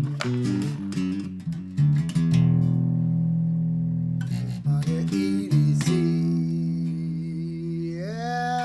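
Guitar music: plucked single notes and chords, with a long ringing chord held a couple of seconds in.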